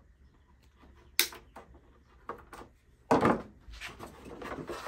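A sharp snip about a second in as cutters cut through a zip tie on the wiring, followed by a few small clicks. From about three seconds in comes a louder rustle and scrape of the Festool CT Mini extractor's plastic top housing being shifted and lifted.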